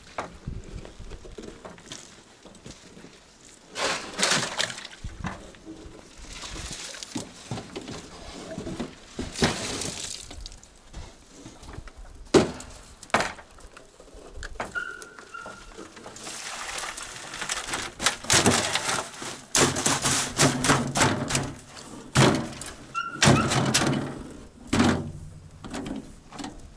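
A series of irregular dull thunks and knocks with rustling between them, busiest in the second half.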